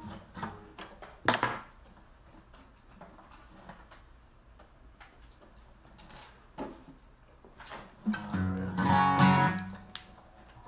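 Acoustic guitar: a sharp knock about a second in, a quiet stretch, then a strummed chord ringing out near the end.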